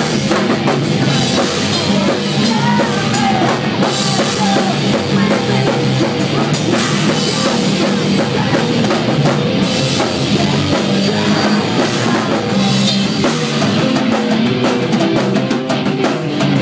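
Rock band playing live, a drum kit and electric guitar going loud and without a break.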